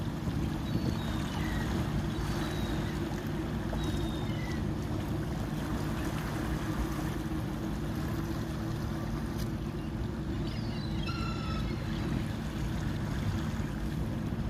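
Steady low drone of a boat's engine running in the harbour. A few short, high bird calls break in, one of them a little longer about eleven seconds in.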